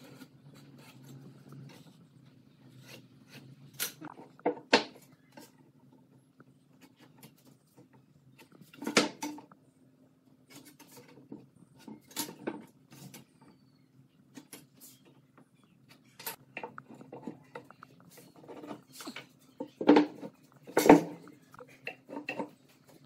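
Scattered clicks, taps and knocks of a steel ruler, square and pencil handled against pine boards on a wooden workbench, with a louder knock about nine seconds in and two heavy knocks near the end as boards are set down, over a faint steady hum.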